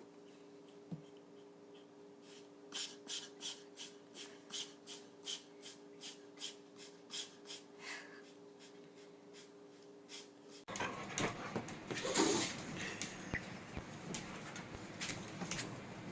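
A pet breathing in quick, short, regular breaths, about three a second, over a steady electrical hum. Near the end the sound changes abruptly to louder rustling, with one louder burst about a second after the change.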